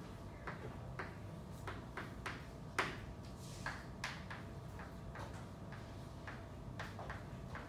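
Chalk on a chalkboard as words are written: a string of irregular sharp taps and short scrapes, the loudest about three seconds in, over a steady room hum.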